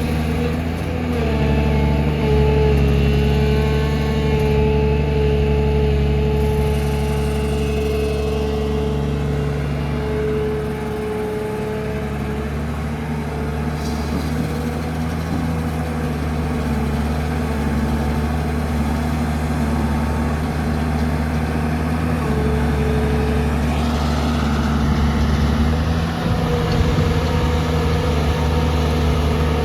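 JCB 3DX backhoe loader's diesel engine running steadily while the machine works, its note shifting slightly several times, with a whining tone over it that comes and goes.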